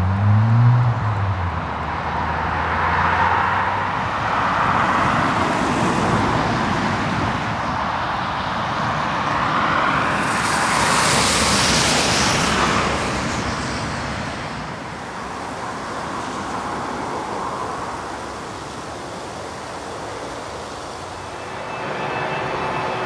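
Road traffic passing on snowy roads: a series of cars going by in slow swells, with a low engine note rising at the start and a hissing pass-by about halfway through, the loudest of them.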